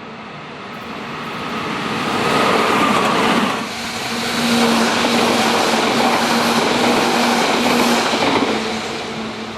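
Electric commuter train passing over a level crossing, wheels and running gear clattering on the rails; the sound builds over the first couple of seconds, stays loud with a short dip partway through, and fades near the end.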